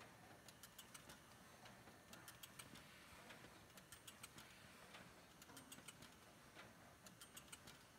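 Zander HHS 2 machine running very faintly, with short clusters of light ticks coming irregularly about once a second over a low hiss.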